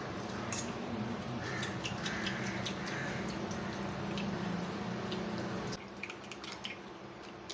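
A fork beating raw eggs and chopped vegetables in a china bowl: wet squishing with light clicks of the fork against the bowl. A low steady hum runs underneath and drops away about six seconds in.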